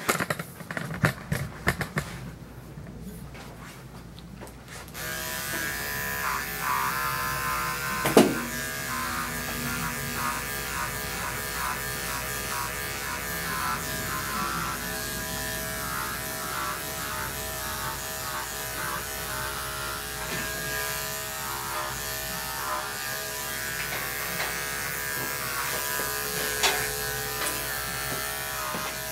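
Corded electric dog-grooming clipper with a 10 blade, switched on about five seconds in and then buzzing steadily as it shaves a large dog's coat. A few clicks and knocks come before it starts, and there is one sharp click a few seconds after.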